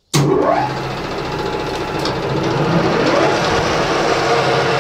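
Metal lathe switched on: the motor and headstock start suddenly and spin up with a rising whine, then run steadily with a gear hum.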